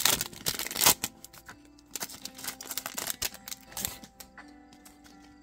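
A trading-card pack wrapper being torn and crinkled in the hands during the first second, then light clicks and ticks as the cards are flicked through one by one, over soft background music.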